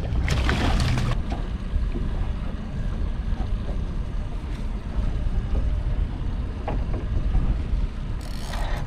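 Wind buffeting the microphone over a steady low rumble on an open fishing boat, with a short rush of noise about half a second in and another just before the end.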